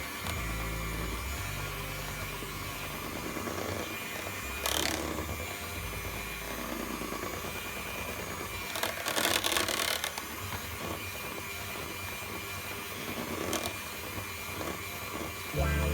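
Electric hand beater running steadily as it whips cream, briefly louder twice, about five seconds in and again around nine to ten seconds in.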